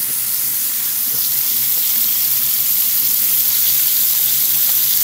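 Steak searing in a hot stainless steel frying pan, a steady sizzle: the meat's sugars are being caramelised and deliberately burnt onto the bottom of the pan.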